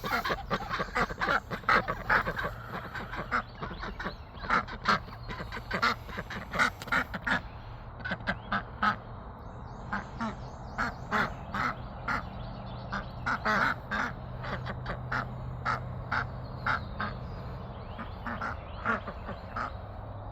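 Ducks quacking over and over in short calls, thickest in the first half and then coming in looser runs, over a faint low steady hum.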